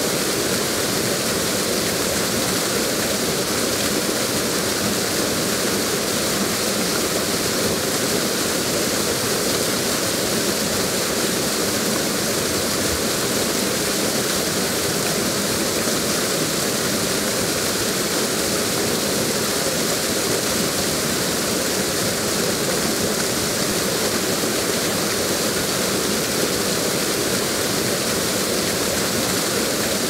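Waterfall with several cascades pouring into a pool: a steady, unbroken rush of falling water.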